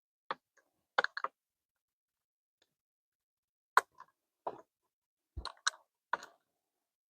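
Short, sharp clicks and clacks of parts and tools being handled while fitting a steering-wheel quick-release hub: about eight separate hits, a couple of them doubled, with silence between.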